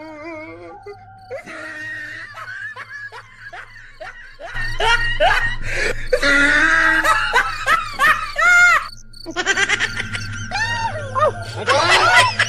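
Vocal laughter, shrieks and wordless yelling with a few short steady-toned sound effects, getting louder from about four and a half seconds in, with music underneath.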